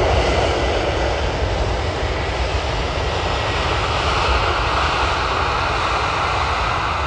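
Jet airliner engines running on the airport runway: a steady rushing noise over a deep low rumble, turning brighter about four seconds in.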